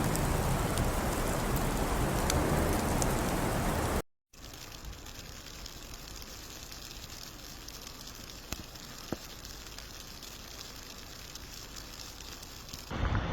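Steady hiss of precipitation falling on surfaces, like rain or wet snow. It is loud for about four seconds, cuts out briefly, then goes on as a quieter hiss with a couple of faint ticks, growing loud again near the end.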